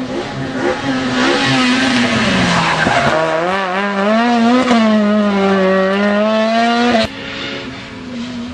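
Rally car engine running hard at high revs: the pitch falls, climbs again and is held high with a wavering note, then the sound cuts off abruptly about seven seconds in.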